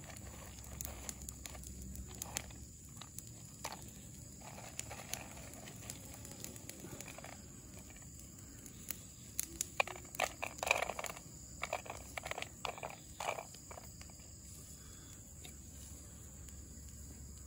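Shelled petai belalang (lead tree) seeds rustling and clicking against a plastic bowl as they are sifted and scooped by hand. A denser run of sharp clicks comes about ten seconds in.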